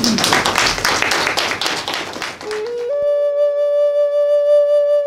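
Audience applauding. About two and a half seconds in, outro music starts: a flute-like note that steps up twice in pitch and then holds one long steady tone.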